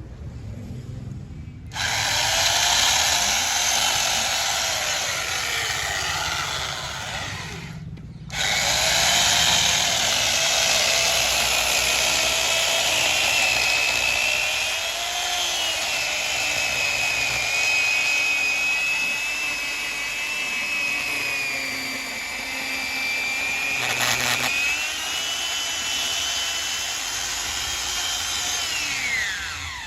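Power tool running and working wood: a steady high whine over rough cutting noise, with a brief stop about 8 seconds in, and the whine winding down near the end.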